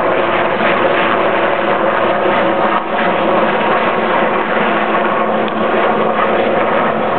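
Helicopter running close by with a steady, loud drone of engine and rotor noise.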